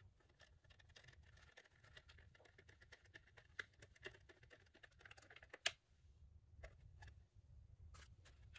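Screwdriver turning small screws in a plastic motor-and-gear housing, with the housing being handled: quiet, irregular clicks and ticks, and one sharper click a little over halfway through.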